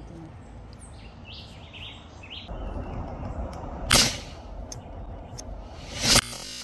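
Two air rifle shots about two seconds apart, each a sharp, loud crack, fired at land crabs. Short chirps sound early on.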